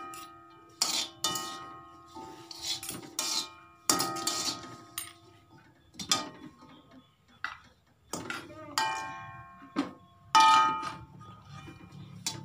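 Metal ladle knocking and scraping against a metal wok as it is stirred: irregular clanks, each leaving a short metallic ring, the loudest about ten seconds in.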